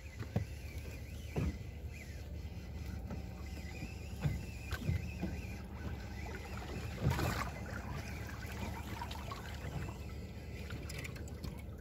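On-deck sound of a boat at anchor: a steady low hum with water sounds, broken by a few light knocks and taps.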